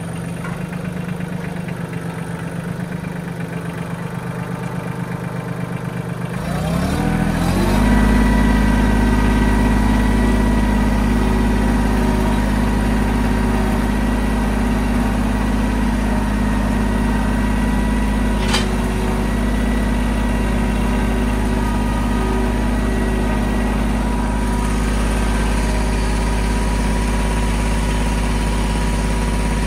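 Mahindra 1626 compact tractor's three-cylinder diesel engine running at idle, then throttled up between about six and eight seconds in and held at a steady higher speed. A single sharp click is heard about halfway through.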